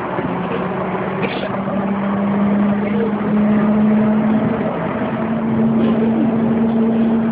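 Kobe Port Liner rubber-tyred automated transit train running at speed, heard from inside the car: a steady running noise with a hum that rises slightly in pitch over the first few seconds, then holds steady.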